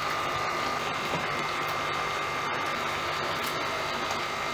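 Steady mechanical whirring hum with a faint constant high whine.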